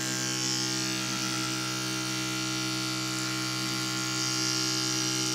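Small DC-motor fan of a homemade battery table lamp running steadily, a constant electric hum with a higher whir.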